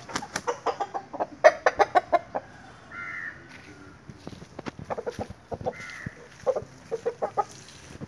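Aseel rooster pecking fast at feed in a concrete bowl: quick runs of sharp taps, twice, with a short higher bird call about three seconds in and again about six seconds in.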